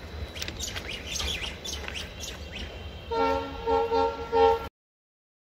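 Birds chirping over the low rumble of a passenger train rolling away. About three seconds in, a horn sounds in several short blasts, the last the loudest, and then the sound cuts off abruptly.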